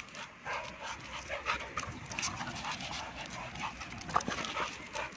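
A Siberian husky and an American Staffordshire terrier panting while they circle and sniff each other. Irregular short scuffs and knocks run through it, with one sharper knock about four seconds in.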